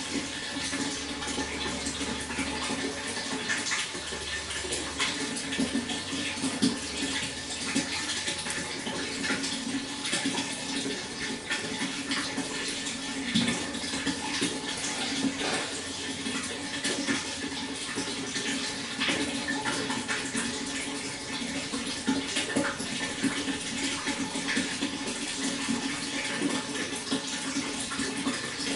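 Water flowing steadily, with a constant splashing.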